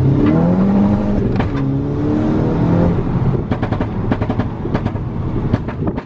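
Volkswagen Golf GTI Mk6's turbocharged 2.0-litre four-cylinder on a stage 2 tune with downpipe, heard from inside the cabin, revving up hard with one upshift about a second and a half in. About three seconds in, on lift-off, the exhaust crackles and pops repeatedly on the overrun, the pops-and-bangs tune at work.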